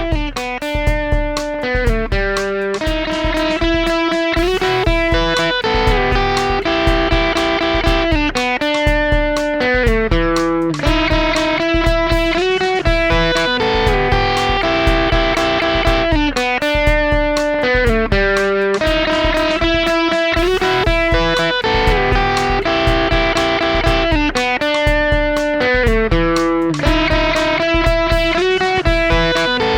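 Electric guitar played through an Xotic EP Booster pedal into a Vox MV50 AC amp: a riff of notes and chords repeating about every four seconds.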